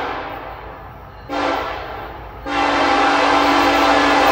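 A Norfolk Southern diesel locomotive's air horn sounding a chord for a grade crossing: a long blast fading out, a short blast about a second in, then a long blast starting about halfway through. This is the close of the long-long-short-long crossing signal.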